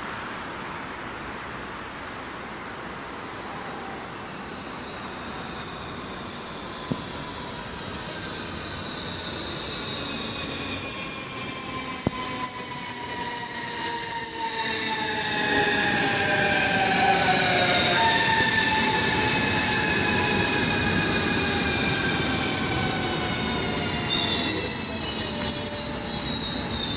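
ES2G Lastochka electric train pulling in and braking: its traction drive whines in several tones that fall in pitch together as it slows, over a rising rumble of the passing cars. Near the end, as it comes to a stop, a high steady squeal.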